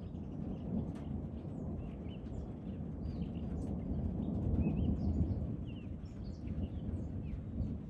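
Many small birds chirping in quick short calls over a steady low rumble that builds about halfway through and then eases off.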